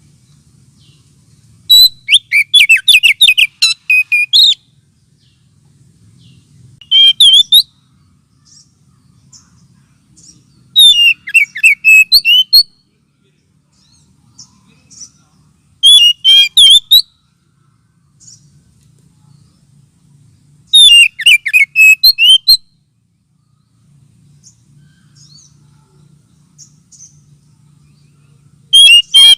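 Oriental magpie-robin (kacer) song played as a lure call: loud bursts of rapid, varied whistled notes lasting one to three seconds each, repeated about every four to five seconds with short gaps between. A faint low hum sits under the gaps.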